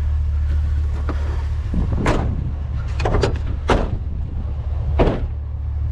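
Items of curbside junk being handled: five sharp clunks and knocks spread over a few seconds, over a steady low rumble.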